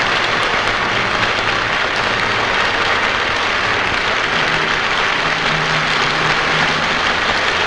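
A crowd applauding: dense, steady clapping, loud throughout.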